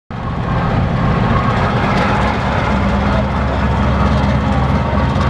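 Diesel-electric locomotive with a 2400 hp American-built engine idling at the head of a passenger train: a steady, loud, low engine hum with no change in pitch.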